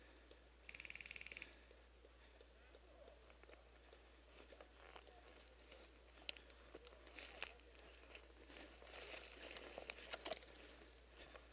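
Faint crackling and snapping of dry twigs and brush as someone pushes through scrub on foot. It is mostly in the second half, with a few sharper snaps. A short, fast-pulsing buzz comes about a second in.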